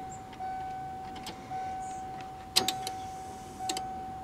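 A 1992 Ford Explorer's warning chime dinging steadily, about once a second, each ding fading before the next. A few sharp clicks sound over it, the loudest about two and a half seconds in.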